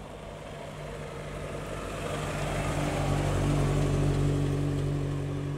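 Mk1 Ford Cortina engine running at low, steady revs as the car drives slowly past, growing louder as it comes close and loudest about four seconds in, with tyre noise on the tarmac.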